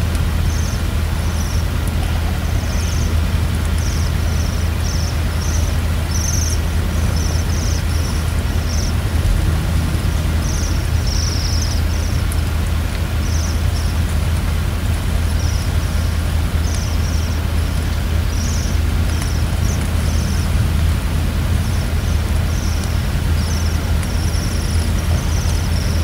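A flock of small birds giving many short, high, thin calls, scattered throughout, over a steady low rumble.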